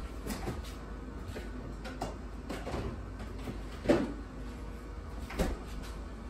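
Scattered light knocks and clacks of household things being handled and set down, with two sharper knocks about four and five and a half seconds in.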